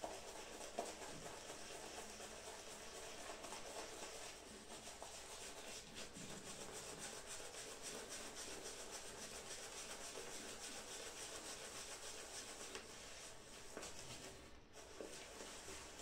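Shaving brush swirling thick shave-soap lather over the face and neck, a steady wet rubbing and swishing, just after the first addition of water to the lather. The rubbing pauses briefly near the end.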